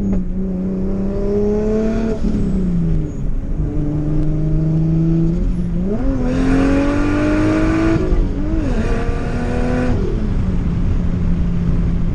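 Turbocharged Lexus IS300's 3.0-litre inline-six accelerating hard: the engine note climbs, drops back at a gear change about two seconds in and holds, then climbs again through another gear change near the end before settling to a steady cruise.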